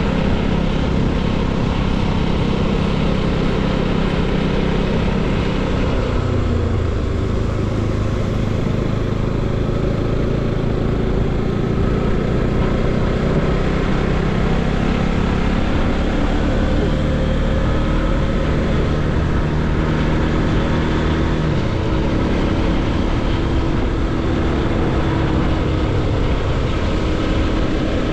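Bajaj Pulsar NS200's single-cylinder engine running under way on a ridden motorcycle, over a steady rush of wind and road noise. Its pitch drops about six seconds in and changes a few more times as the speed changes.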